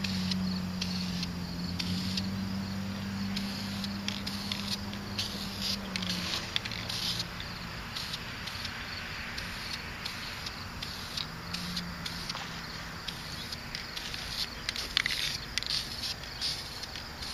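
Aerosol spray paint can hissing in many short bursts as brown paint is sprayed onto a plastic goose decoy, with a low steady hum underneath for the first six seconds or so.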